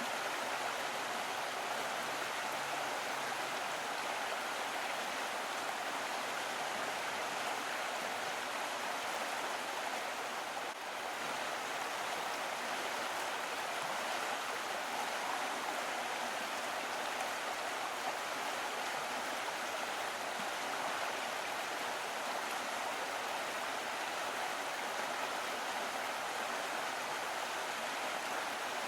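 Small stream of water flowing steadily, an even rushing with no pauses apart from a brief dip in level about eleven seconds in.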